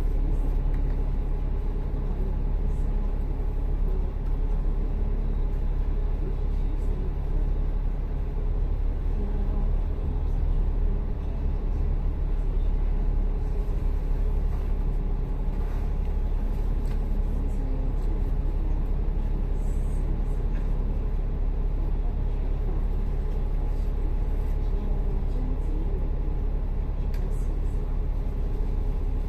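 A city bus's engine and road noise, a steady low rumble, heard from inside the moving bus.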